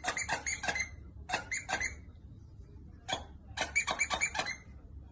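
A dog biting down over and over on a plush squeaky toy. The squeaker sounds in quick runs of several squeaks, with short pauses and a few single squeaks in between.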